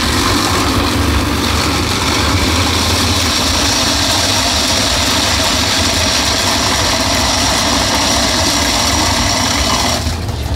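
Steady low engine-like hum with a steady hiss over it. The hiss cuts off abruptly near the end.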